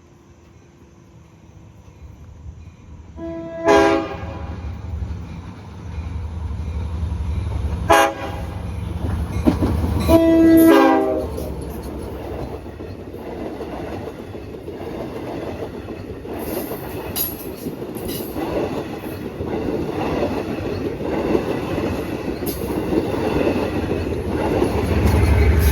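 Long Island Rail Road push-pull train led by a DM30AC locomotive. The horn sounds three times, the third blast the longest. The train then passes with a steady rumble and wheel clatter that grows louder near the end.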